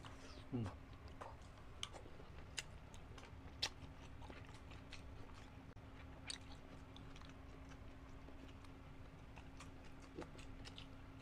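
Faint close-up chewing of grilled isaw (chicken intestine), with scattered wet mouth clicks and smacks over a faint steady hum.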